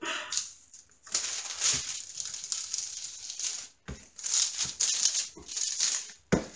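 Clear plastic film on a diamond painting canvas crinkling and rustling as hands smooth the rolled canvas flat, with a few thumps of hands pressing down on it.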